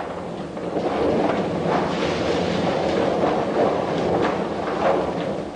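Rotating-drum dehairing machine running with a steady dense clatter as it tumbles a scalded carcass to strip out the hair.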